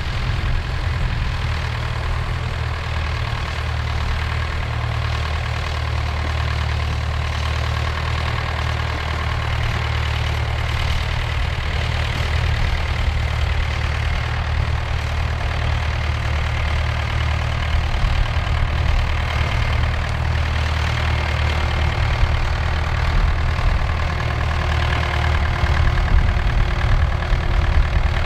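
David Brown tractor engine running steadily while pulling a mounted plough through stubble, a deep, even engine note.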